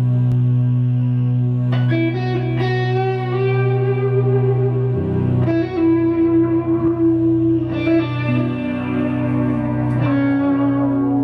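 Rock music: a distorted electric guitar playing a melodic solo of long held notes over sustained low chords, the notes changing every few seconds.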